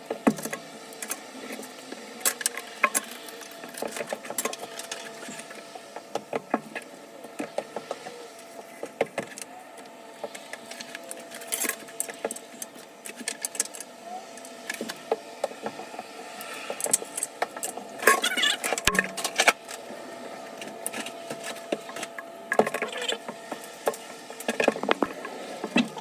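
Irregular metallic clicks, taps and rattles from hand tools and parts being worked on a shower valve, over a faint steady hum.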